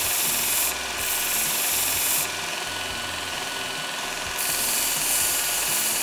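Belt grinder running with a small steel bung pressed against the belt, grinding its coped end to shape. The harsh grinding comes in three spells, at the start, from about one to two seconds in, and again from about four and a half seconds on, with the belt running more quietly between them.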